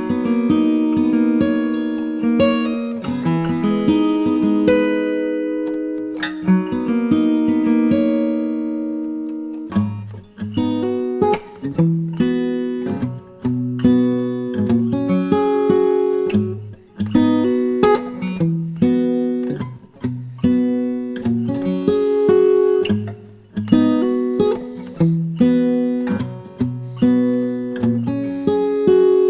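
Background acoustic guitar music: held, ringing chords at first, then about ten seconds in lower bass notes join and the playing turns to a rhythmic picked pattern.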